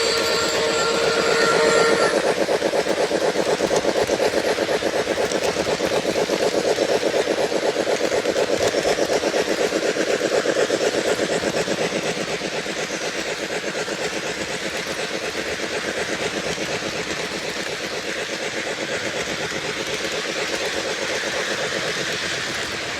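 Lionel LionChief Plus Union Pacific Hudson O gauge model steam locomotive: its sound system plays a steam whistle that stops about two seconds in, then a steady, even steam-chuffing rhythm as the engine runs.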